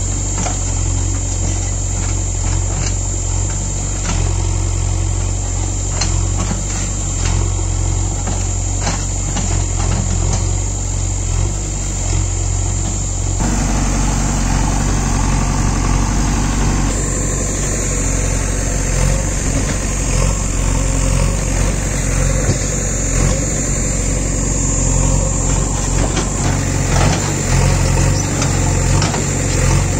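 JCB 3DX backhoe loader's diesel engine running steadily while the backhoe digs out trees, with scattered short knocks. The sound grows fuller and a little louder about halfway through.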